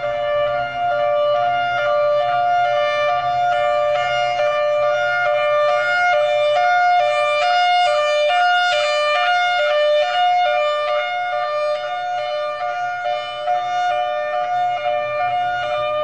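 Federal Signal Thunderbolt rotating outdoor warning siren sounding the High-Low signal, switching back and forth between two steady pitches. It grows louder toward the middle as the turning horn swings past, then fades. The High-Low signal is the civil-defense alarm used for a fire emergency.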